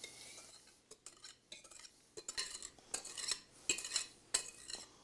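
Wire whisk scraping and clinking against glass bowls as beaten egg yolks are scraped out into a bowl of flour: a few faint scrapes, then a quick run of clinks and scrapes from about two seconds in.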